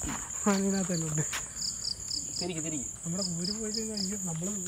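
Crickets at night: a steady high-pitched insect buzz, with a cricket chirping in short runs of three or four pulses, several times.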